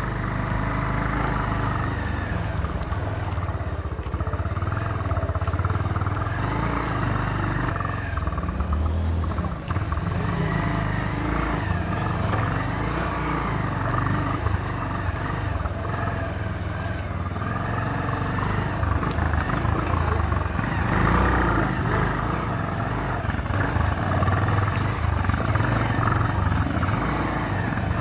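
Motorcycle running steadily while under way, engine and road noise together.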